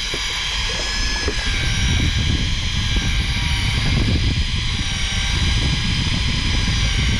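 Fishing boat's engine running steadily, heard on board: a continuous low drone with a steady high whine over it.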